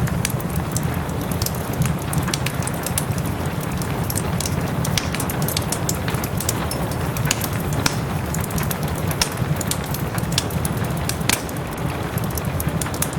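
Wood fire crackling in a fireplace, with frequent sharp pops, over a steady hiss of soft rain and a low rumble.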